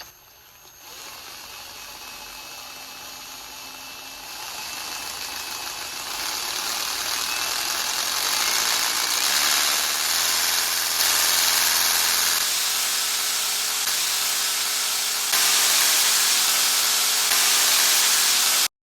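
Power drill at full speed spinning a Rubik's cube's top layer, giving a loud, steady, high whir of motor and plastic. It grows louder in steps over the first dozen or so seconds, then cuts off suddenly near the end.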